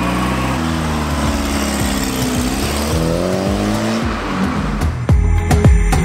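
Mk2 Volkswagen Golf engine pulling away and accelerating: its pitch climbs, drops at a gear change and climbs again, then dies away after about four seconds. Music with a steady beat starts near the end.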